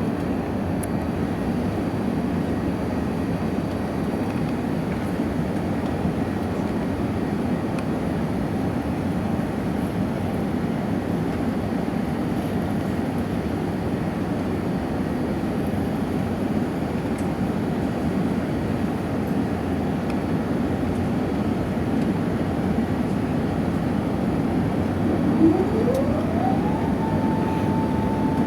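Steady rumble of an Airbus A380's engines and rushing air, heard from inside the passenger cabin during the climb after takeoff. Near the end there is a short click, then a whine that rises in pitch and holds steady.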